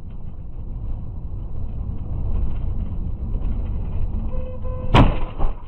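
Car driving on a rough dirt road, heard from inside the cabin as a steady low rumble and rattle, then a sharp crash of impact about five seconds in, followed by a smaller knock. A short steady tone sounds just before the impact.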